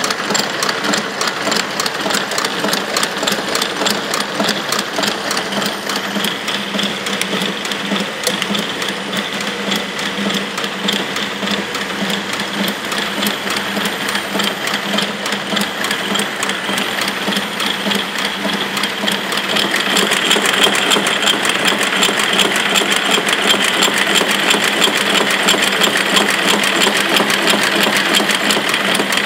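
Theegarten FWT confectionery wrapping machine running, a steady, rapid mechanical clatter. It gets louder about two-thirds of the way in.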